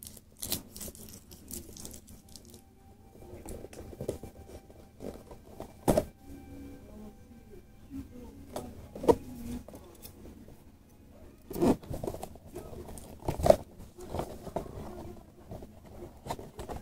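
A toy figure package being torn open and handled: packaging crinkling and tearing, with several sharp knocks and rustles.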